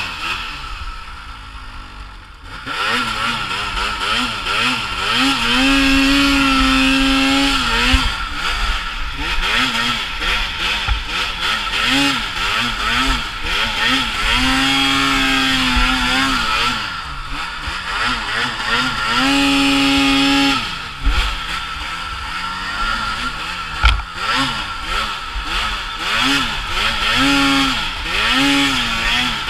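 2018 Arctic Cat M8000 snowmobile's 800 cc two-stroke twin, heard from the rider's seat, revving up and down over and over as it is ridden through deep snow, briefly backed off near the start and held at high revs three times.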